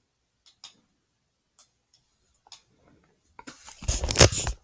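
A few faint, scattered clicks, then a louder cluster of knocks and rustling about three and a half seconds in.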